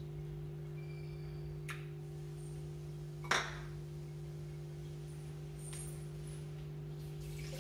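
A steady low hum with a few evenly spaced pitches. There is a faint click about a second and a half in and one sharp knock about three seconds in.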